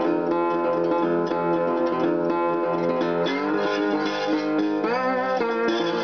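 Instrumental background music led by plucked guitar, with notes sliding in pitch about three and five seconds in.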